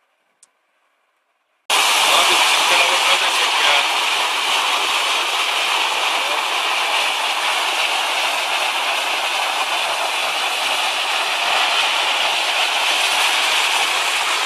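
Rocky mountain stream rushing over boulders below a small waterfall: a loud, steady rush of water that cuts in abruptly about two seconds in.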